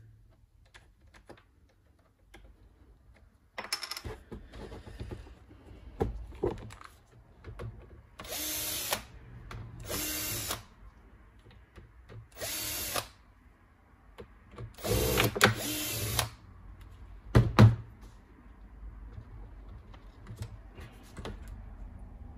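Cordless drill-driver with a Phillips bit spinning in four short runs of about a second each, backing out small screws from a laptop's underside. A sharp knock comes after the last run, with light clicks and handling noise around it.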